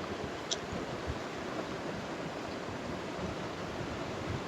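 Steady, even rushing noise of water or moving air, with no voices over it.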